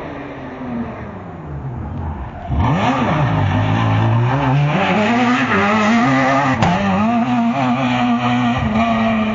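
Rally car engine going past close by. It gets suddenly loud about two and a half seconds in, drops low in pitch, then climbs again in steps with brief dips as the car accelerates away.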